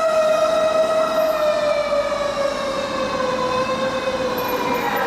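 Fire engine motor siren wailing, its tone sliding slowly down in pitch as it winds down. Right at the end, a second, higher siren tone comes in.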